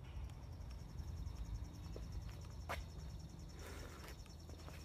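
Faint outdoor ambience: a steady low rumble under a faint, high, pulsing trill, with one sharp click a little past halfway.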